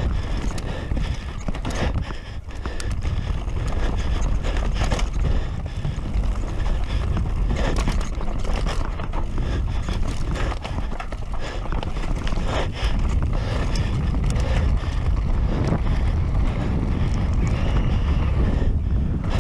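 Canyon Sender downhill mountain bike ridden fast down a dirt trail: heavy wind rush over the microphone, tyres running on dirt, and the bike clattering and knocking over bumps and roots, with a short lull about two seconds in.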